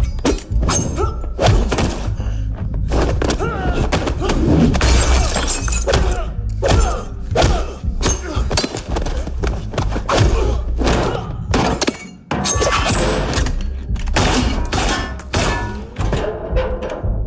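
Movie fight sound effects over a low action-music score: a rapid series of punch and body-slam thuds, with glass shattering as a mirror is smashed.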